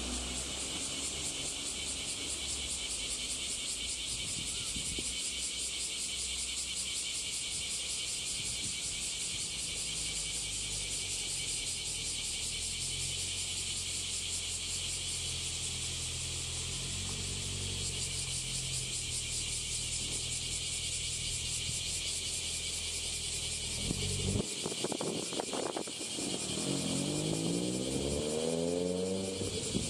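Road traffic: the engines of passing vehicles under a steady high hiss. Near the end a vehicle accelerates close by, its engine pitch rising.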